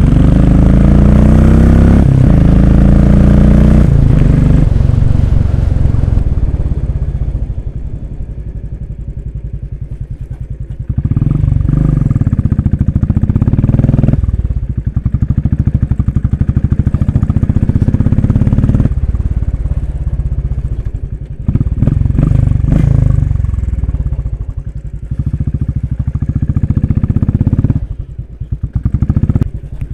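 Royal Enfield Classic 500's single-cylinder engine under way on a dirt track. It revs up strongly for the first few seconds, then the throttle is eased off and it goes quieter. From about eleven seconds in, the rider opens and closes the throttle again several times.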